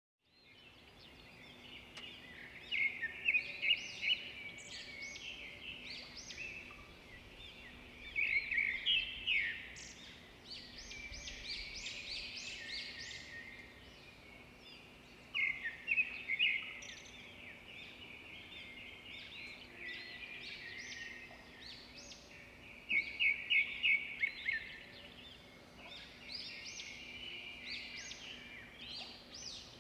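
Birds chirping and trilling in quick repeated phrases, loudest in clusters every several seconds, over a faint steady hum.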